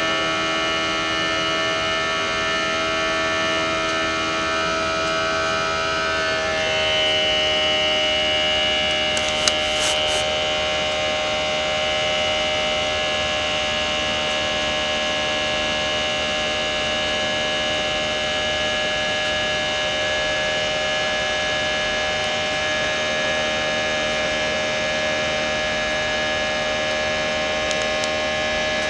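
Airbus A320 cabin noise in the climb: a steady jet engine drone with several whining tones, whose pitch shifts about six or seven seconds in. A couple of faint clicks about ten seconds in.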